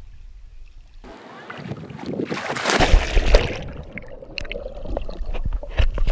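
Water splashing and sloshing around a hand-held GoPro as a swimmer moves through the water. The splashing swells to its loudest about three seconds in, with sharp knocks near the end.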